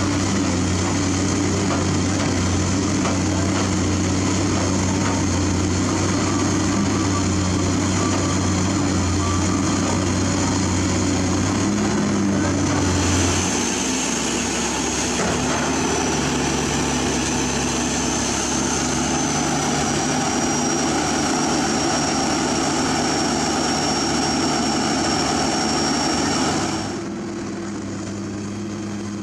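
Diesel engines of a Doosan DX225LCA and a Komatsu PC200 excavator running steadily. The first part carries a strong low hum. About halfway through the sound changes to a different engine mix with a faint high whine that slowly falls in pitch, and near the end it drops quieter.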